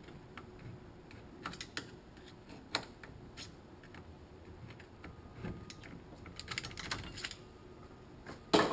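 Scattered light metallic clicks and taps of a Toyota A340 transmission's center support being worked into its case by hand, a quick run of clicks about two-thirds of the way in, and a louder clatter near the end.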